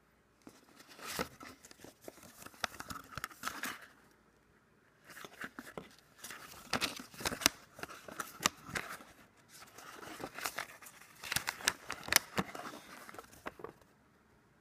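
A folded paper instruction leaflet being pulled out and unfolded by hand: paper crinkling and rustling in three bouts, full of sharp crackles.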